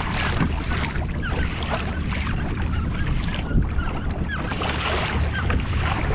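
Wind buffeting the microphone over water splashing and sloshing against the hull of a pedal kayak moving through light chop.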